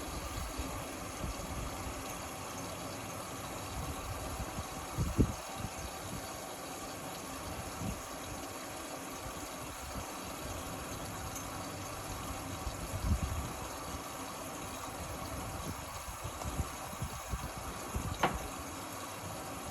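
Indesit Innex XWA 81252 washing machine running, with a steady wash of water noise and a few short low thumps.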